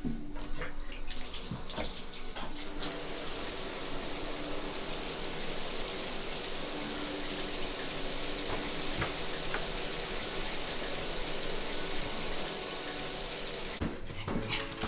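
Water running steadily, like a tap or shower, starting about a second in and cutting off near the end.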